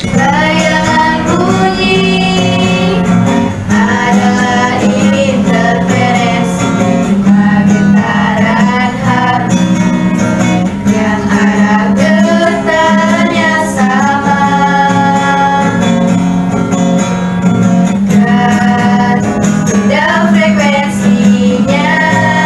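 Three girls singing a song together in Indonesian, accompanied by an acoustic guitar.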